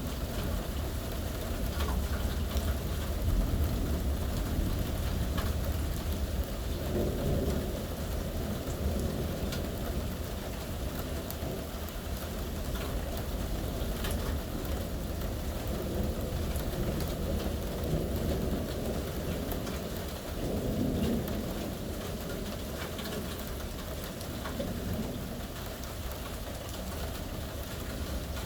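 Thunderstorm: steady rain falling, with low rolling thunder rumbling under it, heavier in the first several seconds and swelling again about twenty seconds in.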